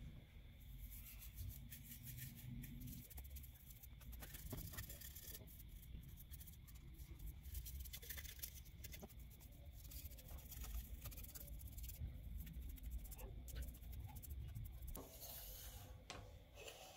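Bristles of a small flat paintbrush scratching and rubbing against a dry, cracked wooden saw handle in many short, faint strokes.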